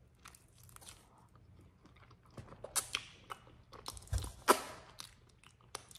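Close-up eating of a sauced chicken piece: chewing with irregular sharp crackles and mouth clicks, sparse at first and busiest from about two and a half to five seconds in.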